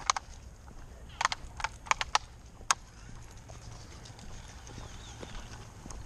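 Footsteps on a tarmac path: a run of sharp, irregular taps and clicks in the first three seconds, then fainter steps.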